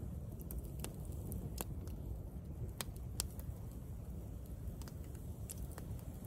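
Wood campfire crackling, with a handful of sharp, scattered pops over a steady low rumble.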